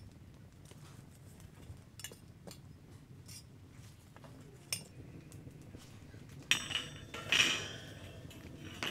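Wood fire crackling with a few sharp pops, then a metal grill grate clatters and rings as it is set down across the stone hearth, about two-thirds of the way in.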